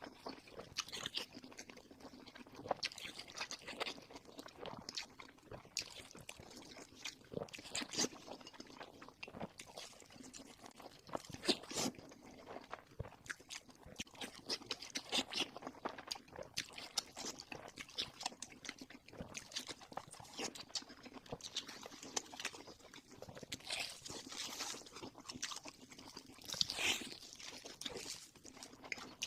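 Close-miked eating of spicy noodles and sweet and sour chicken: irregular crunchy bites and chewing, many times over.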